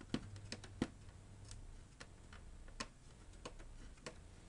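Faint, irregular light clicks and taps from handling the opened PS4's internals while its fan and heat pipe are cleaned.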